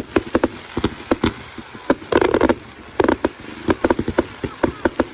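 Fireworks going off: a rapid, irregular run of sharp bangs and crackles, with a dense cluster about two seconds in.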